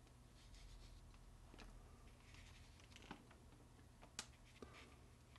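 Faint scratchy swishes of a wet 1-inch flat brush stroked across watercolour paper, with a few light clicks and taps of brushes handled at the palette, the sharpest about four seconds in.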